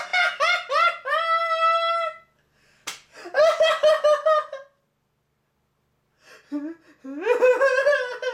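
A man laughing hard in three high-pitched, breathless bouts, with one sharp smack about three seconds in.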